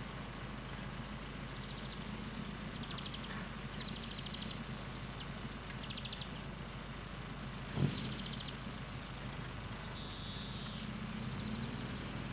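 Classic Mini's engine idling with a steady low hum, while small birds give short high trills several times. One sharp knock sounds about eight seconds in.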